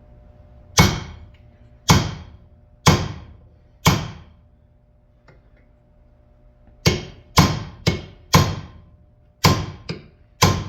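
Big hammer striking a steel punch to drive the pin out of a 1968 Pontiac Firebird upper door hinge clamped in a vise. Four blows about a second apart, a pause of a few seconds, then seven quicker blows, each a sharp metallic clank with a short ring.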